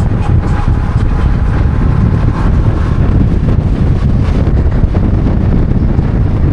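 Steady low rumble of wind buffeting the microphone, mixed with the running noise of a moving vehicle.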